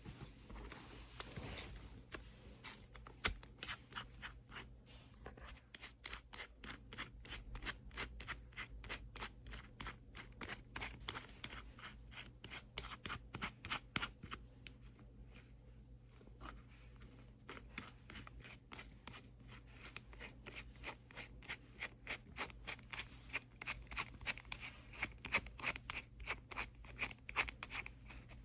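Faint, irregular clicking and scraping of small hard tool-kit pieces being handled, many sharp ticks in quick succession.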